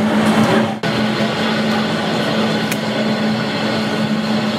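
Steady mechanical hum with a low drone as a model diesel shunter runs along the layout's track, broken briefly just under a second in.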